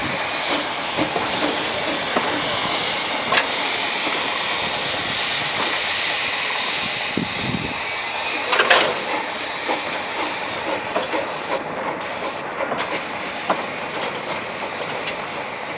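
Steady hiss of steam from the small vertical-boilered De Winton locomotive Chaloner as it draws away slowly with its wagons, easing slightly near the end. A few sharp clicks stand out, about three seconds in and again about nine seconds in.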